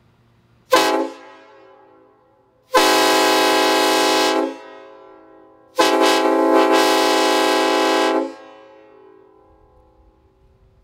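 Homemade PVC replica of a Leslie K5LLA five-chime train horn, sounding a many-note chord. It gives one short toot, then two long blasts of about two seconds each, and each blast dies away in a trailing echo.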